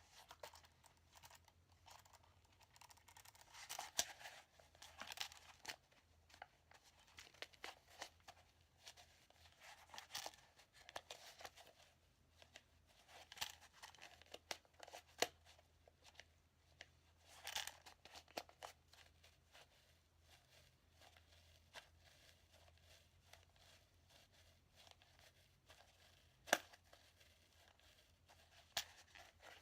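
Faint, scattered clicks, scrapes and rustles of two pairs of steel handcuffs being forced into a handcuff case, with one sharper click near the end.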